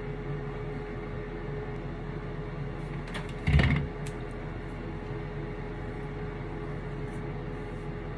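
Steady low hum with a faint steady tone, and a single dull thump about three and a half seconds in.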